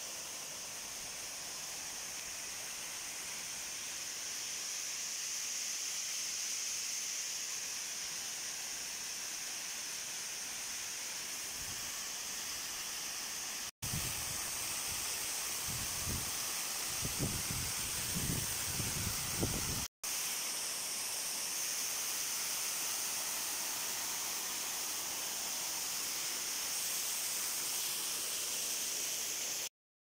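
Small waterfall pouring down a rock face: a steady rush of falling water. Around the middle some low rumbling bumps hit the microphone, and the sound drops out briefly twice.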